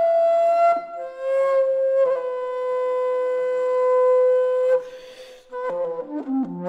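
Flute playing slow held notes in a contemporary solo piece: a short higher note, a breathy gap, then one long lower note held for about three and a half seconds. Near the end come breath and air sounds and a quick flurry of short notes with some lower tones.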